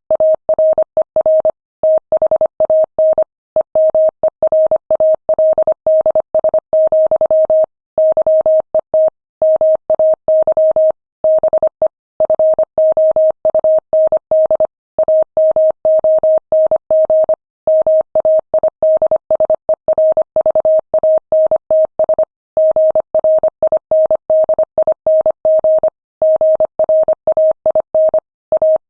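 Morse code at 25 words per minute: a single steady mid-pitched beep keyed on and off in rapid dots and dashes, with short pauses between letters and longer pauses between words.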